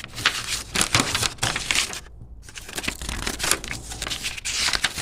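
Paper and packaging crinkling and rustling as items are handled and pulled out of a shipping box, with a short lull about two seconds in.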